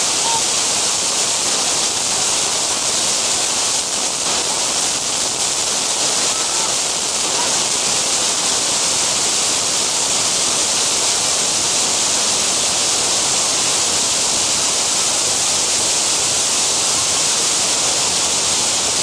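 A loud, steady hiss, even and unbroken throughout, strongest in the upper range.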